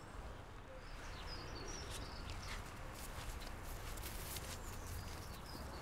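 Quiet rural outdoor ambience with small birds chirping now and then, and a few soft footsteps walking away.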